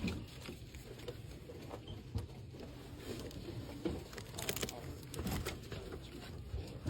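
Light handling noises of small gift items and their packaging being sorted: scattered soft taps and knocks, with a brief crinkle of packaging about four and a half seconds in.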